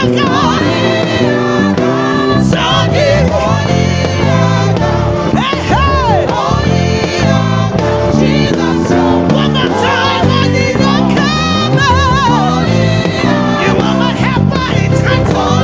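Live gospel praise music: singers and a choir with a full band, the electric bass playing a moving line of low notes underneath.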